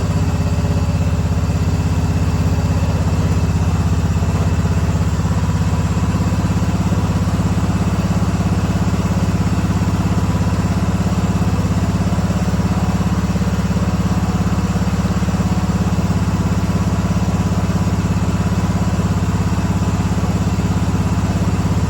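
1976 John Deere 300 lawn tractor engine running steadily at an even speed.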